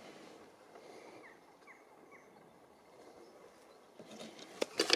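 Quiet outdoor background with three faint short chirps in the first half. Near the end come rustling and a couple of sharp knocks of clothing and hand handling close to the microphone.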